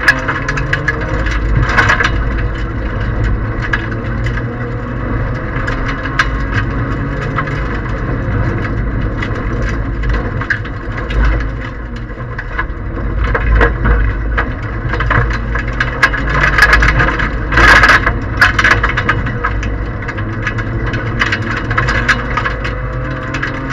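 Toyota Aygo 1.0 rally car's three-cylinder engine running hard on a gravel stage, heard from inside the cabin, with loose stones clattering and knocking against the underside and body throughout. One louder hit comes late on.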